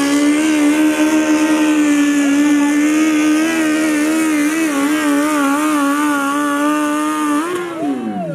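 Engine of a 500 kg garden-modified pulling tractor running flat out under load as it drags a weight-transfer sled, holding a steady high pitch with slight wavers. Near the end the revs drop sharply as the pull comes to a stop.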